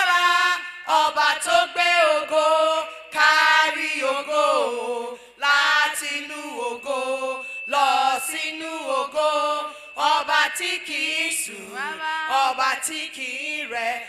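Voices singing a Yoruba gospel praise chorus in repeated phrases, the melody rising and falling between breaths.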